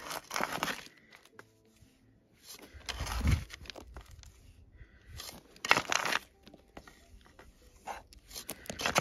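Soil and gravel being scraped and pushed back into a dug hole, four separate gritty scrapes about three seconds apart.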